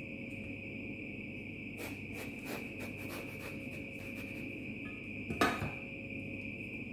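Knife slitting a whole eggplant lengthwise on a wooden cutting board: faint scrapes and taps of the blade, with one louder knock about five and a half seconds in. A steady high-pitched tone runs underneath.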